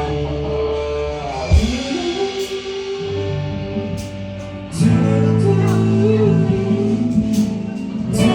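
Song with guitar and singing: long held notes over guitar chords, quieter through the middle and fuller again near the end.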